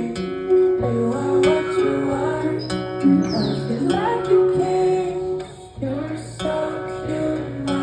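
Live pop music played over a venue's sound system: a plucked, guitar-like melody over sustained notes, with a woman singing and a high falling sweep about three seconds in.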